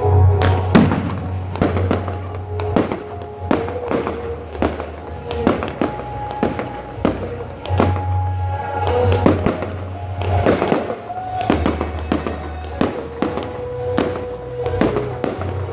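Fireworks going off in a rapid series of sharp bangs, about two a second, over music with a bass line and held notes.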